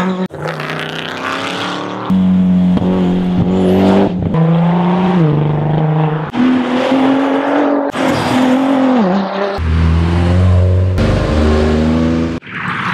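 Rally car engines at full throttle on a tarmac stage, heard in a string of short clips cut together: each car revs hard, with rising and falling engine pitch as it changes gear and passes.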